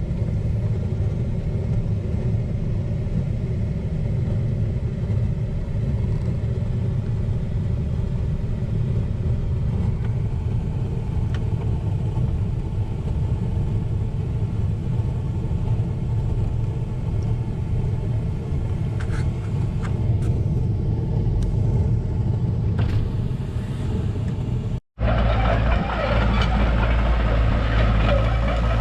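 Steady engine and road rumble of a vehicle driving. About 25 seconds in, a sudden cut brings in a different, louder engine running with more rattle in it.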